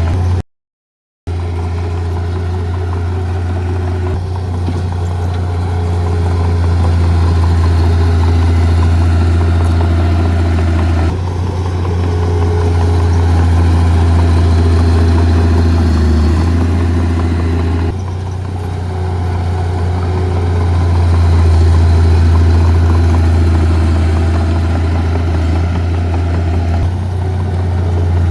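Heavy diesel earth-moving machinery, bulldozer or dump truck, running with a steady low engine drone that changes abruptly a couple of times and briefly cuts out near the start.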